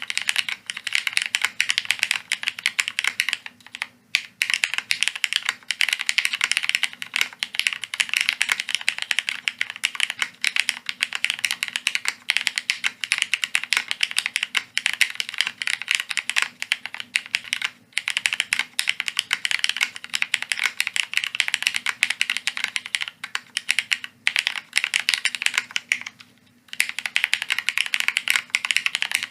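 Fast, continuous typing on a Bina 103 mechanical keyboard with Cherry Hyperglide MX Black linear switches in a half aluminium plate, a dense run of key clacks. It stops briefly about four seconds in, and again for about a second near the end.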